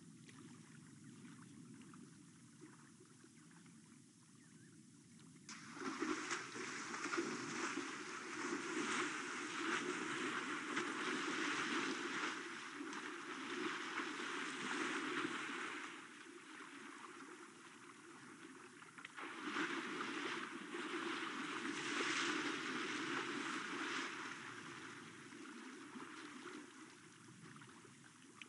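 African elephant wading through a shallow waterhole, its legs sloshing and splashing the water in two long spells, from about six to sixteen seconds in and again from about nineteen to twenty-four seconds in. A fainter steady wash of water runs between the spells.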